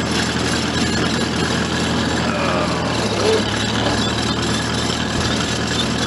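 International Harvester 154 Cub Lo-Boy tractor's small four-cylinder gasoline engine running steadily.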